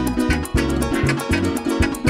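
Instrumental Venezuelan llanera music played live: a plucked harp and cuatro over a bouncing bass line, with a shaker keeping a fast, even beat.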